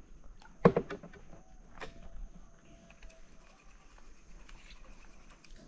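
A hand slapping the river surface beside a boat: a sharp splash about a second in and a smaller one near two seconds.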